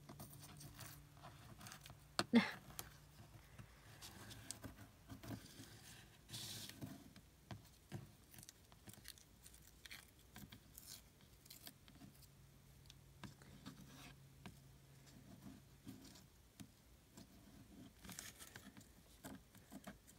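Paper being handled and torn along the edge of a ruler: faint rustling and scraping, with one sharp tap about two seconds in.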